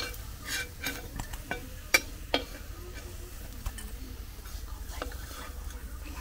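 Metal spatula scraping and tapping against a wok while lifting fried fritters out of hot oil, with a faint sizzle of frying. Sharp clicks come irregularly, loudest at the start and about two seconds in.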